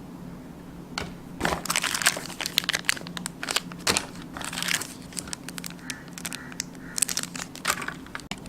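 Packaging crinkling and crackling as the action camera's boxed accessories are handled and unpacked: dense, irregular crackles that start about a second in and go on almost to the end.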